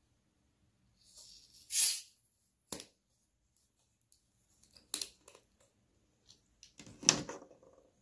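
Screw cap being twisted off a plastic drink bottle, close to the microphone: a short hissing rush a second or two in, a sharp click, then scattered clicks and a louder crackle near the end as the cap comes free.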